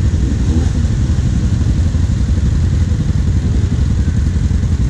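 ATV engine idling, heard from on board the quad: a steady low rumble.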